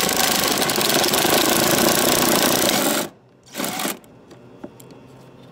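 Quarter-inch-drive ratchet on a swivel extension, turning a bolt with a fast, even rattle of clicks for about three seconds. A short second burst of ratcheting follows, then a few light ticks.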